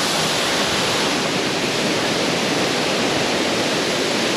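Waterfall pouring into a pool: a steady, loud rushing hiss of falling water.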